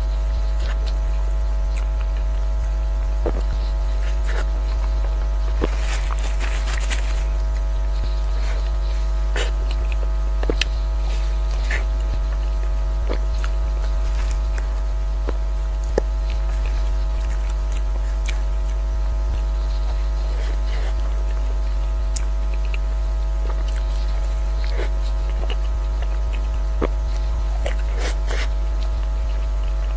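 Steady low electrical hum, with scattered short wet clicks and smacks of a mouth chewing soft cake taken off a fork.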